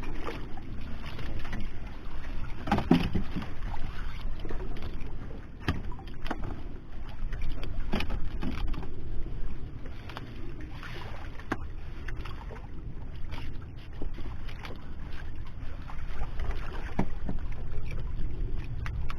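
Small fishing boat at sea: a steady low rumble of wind and water, with scattered knocks and clicks on board.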